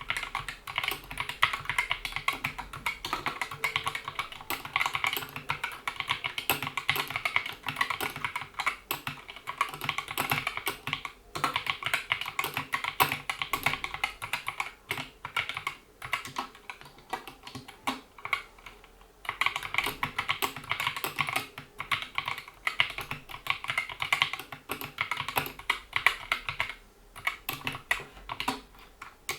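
Fast, continuous typing on a GK61 mechanical keyboard with Gateron optical linear switches, PBT keycaps and rubber O-ring dampeners under the keys, with a few brief pauses.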